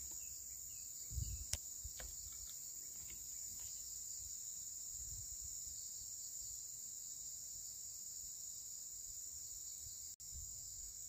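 Steady high-pitched insect chorus, with a few faint clicks and knocks about a second in.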